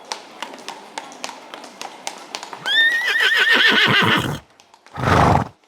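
Horse hooves clip-clopping at an even walk, about three beats a second. Then a horse gives a loud whinny, wavering and falling away over about a second and a half. Near the end comes a short breathy burst.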